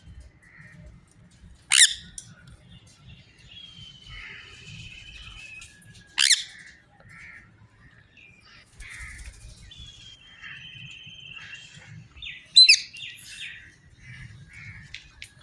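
Pet birds calling: three loud, sharp squawks about 2 s, 6 s and 12 s in, with softer chirps and two longer held whistling notes between them.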